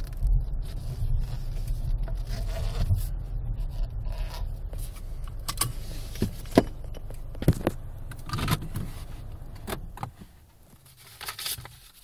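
A car's engine and low rumble as it rolls down a driveway and stops. Several sharp clicks and knocks come from inside the cabin, then the rumble cuts off about ten seconds in, as when the engine is switched off.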